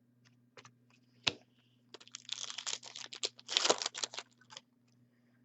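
Hockey trading cards and their foil pack wrapper being handled: a single click about a second in, then a couple of seconds of dense crinkling and rustling.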